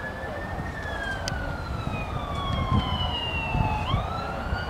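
Apache attack helicopter flying by: the rotor thudding low under a high turbine whine that slides slowly down in pitch, then jumps up and climbs again near the end.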